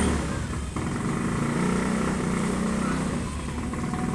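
An engine running steadily, its sound mostly low-pitched.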